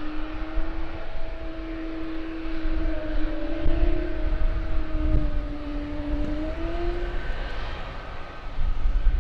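Airliner engines humming with a steady, slightly wavering tone that fades out about seven seconds in. Gusting wind buffets the microphone, heaviest near the end.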